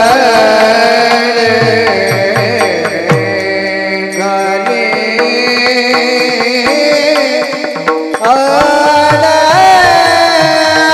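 A male voice sings a Marathi kirtan chaal in raga Bhairavi, with long, ornamented notes that bend in pitch, over steady held harmonium notes and hand-drum strokes. Just before 8 s the voice pauses briefly, then comes back in with a rising glide.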